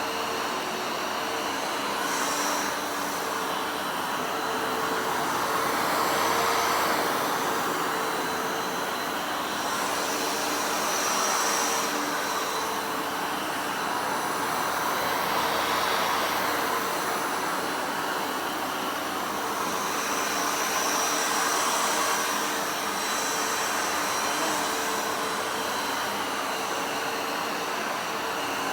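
Vacuum cleaner running steadily with a fixed hum, its sound swelling and easing every few seconds.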